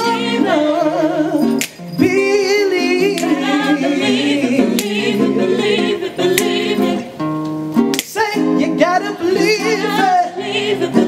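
Live gospel singing: voices holding long, wavering notes over sustained harmony, with a few sharp percussive hits.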